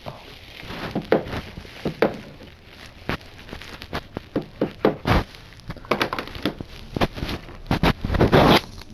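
A plastic Blu-ray/DVD case and its packaging being handled: irregular clicks and knocks with crinkling, and a longer rustle near the end.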